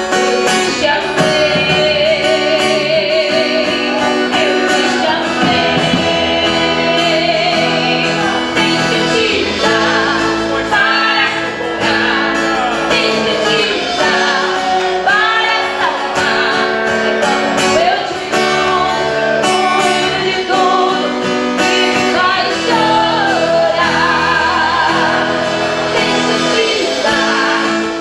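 Live gospel worship music: a group singing, with women's voices heard, over plucked guitar accompaniment.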